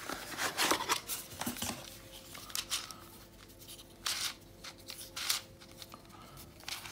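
Handling noise from unboxing a plastic twisty puzzle: a cardboard box rustling and scraping as it is opened, then the puzzle's plastic pieces clicking and scraping as it is lifted out and turned in the hands. The noises are short and scattered, with a few sharper clicks.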